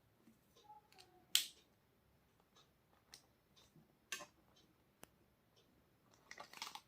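A few sparse, faint clicks and taps, the sharpest about a second and a half in and a small cluster near the end.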